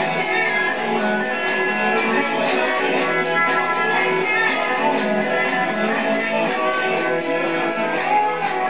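Live country-and-western band playing, with strummed guitar at the front of the mix.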